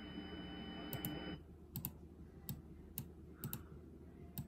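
Faint FM radio broadcast of a failed Emergency Alert System monthly test: a burst of hiss with a steady high tone for about a second and a half, then scattered sharp clicks.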